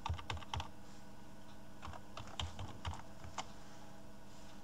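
Typing on a computer keyboard: a quick run of about five keystrokes at the start, then a second run of about six keystrokes in the middle.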